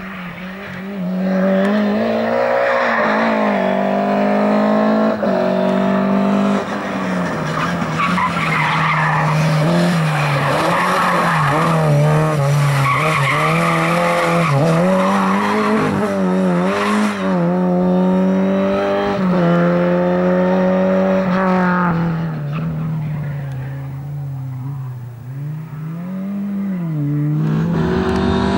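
Classic Lada saloon rally car's engine revving hard, its note rising and falling again and again as the car is driven through tight turns, with tyres squealing as it slides. The engine is quieter for a few seconds near the end, then picks up again.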